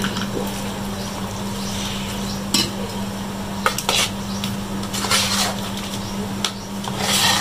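Steel spoon stirring and scraping boiled potatoes and spices in a stainless steel bowl, with several sharp clinks of spoon on steel. A steady low hum runs underneath.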